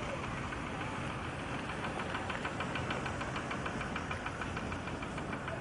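Vehicle engine running steadily, with a fast, even ticking that starts about a second and a half in.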